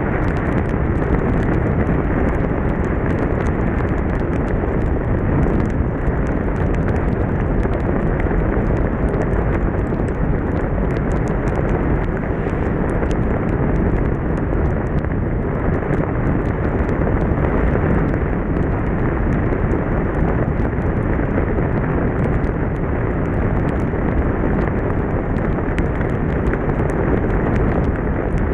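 Steady, loud wind rush on the microphone mixed with the engine and tyre noise of a BMW motorcycle riding at speed on a wet road in the rain. Many small sharp ticks run through it, typical of raindrops hitting the camera.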